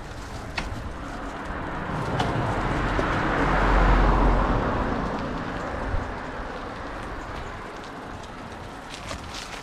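A vehicle passing by: its noise and low rumble build up, peak about four seconds in, then fade away.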